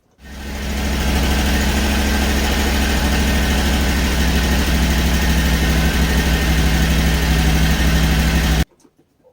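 Portable band sawmill running steadily under power, its gas engine humming under the noise of the blade working through a hardwood log. It builds up over the first second and cuts off abruptly near the end.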